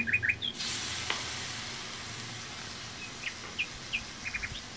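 Cold yogurt dropped onto hot ghee-fried keema mince in a karahi sizzles. The hiss starts suddenly about half a second in and slowly dies down.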